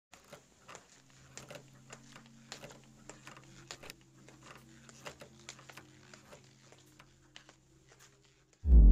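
Old-film crackle effect: scattered clicks and pops over a faint steady hum and hiss. Loud electronic music with a beat cuts in right at the end.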